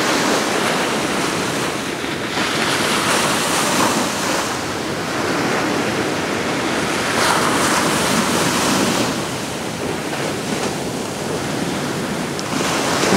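Steady rushing noise that swells and eases every few seconds.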